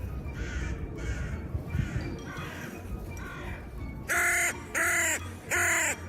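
A bird calling: a run of fainter calls, then three loud calls in quick succession, each rising and falling in pitch, near the end.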